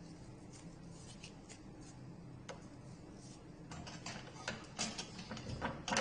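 Light clicks and taps of plastic-handled kitchen utensils knocking against a stainless steel wire utensil holder as they are hung on it and lifted off. The clicks are scattered at first and come more often from about two-thirds of the way through.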